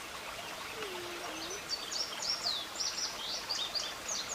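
A songbird singing a quick series of high chirps, starting about one and a half seconds in, over a steady outdoor hiss.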